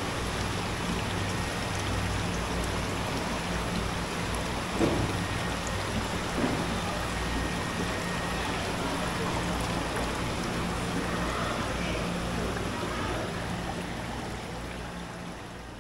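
Steady noisy ambience over a low steady hum, with two faint knocks about five and six and a half seconds in, fading out near the end.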